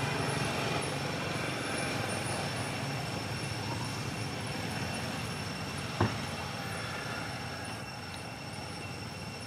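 Steady background rumble and hiss of open-air ambience with a few faint high steady tones, and a single sharp click about six seconds in.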